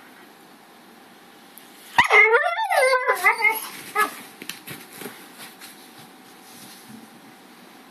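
Husky-type dog giving a sudden, loud run of several short barks and yowls with a wavering pitch about two seconds in, lasting about a second and a half. A few knocks and scrabbling sounds follow as it leaps off a leather sofa.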